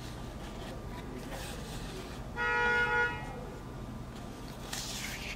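A single short car horn honk: one steady tone, about a second long, two and a half seconds in. Near the end, a brief rustle of a photo-book page being turned by hand.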